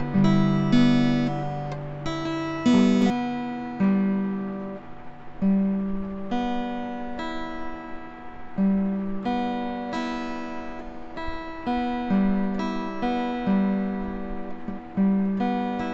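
Background music: an acoustic guitar playing a slow melody of plucked notes, each note fading after it is struck.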